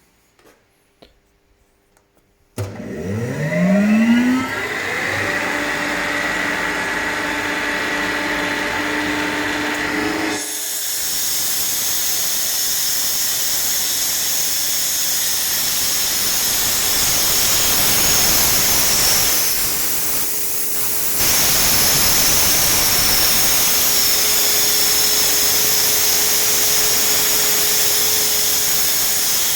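Renner RS-Top 7.5 kW screw air compressor starting up: its motor kicks in about two and a half seconds in and spins up with a rising whine, then runs steadily. About ten seconds in the sound changes to a louder, rushing hiss that carries on, dipping briefly and then stepping up again near the twenty-second mark.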